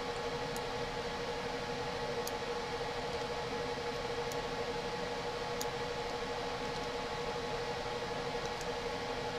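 Steady background hum and hiss with one constant mid-pitched tone, broken by a few faint, sharp clicks.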